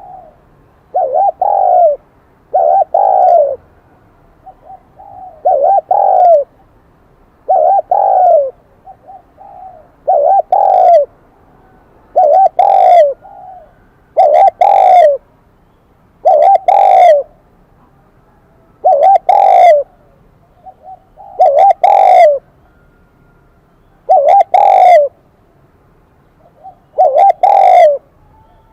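Spotted dove cooing over and over: a loud coo about every two to three seconds, with soft short notes in between. The voice is the high, ringing 'kim đồng' type prized in decoy doves for drawing in wild birds.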